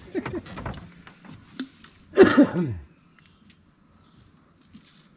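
A short vocal exclamation falling in pitch about two seconds in, amid a few faint scattered clicks.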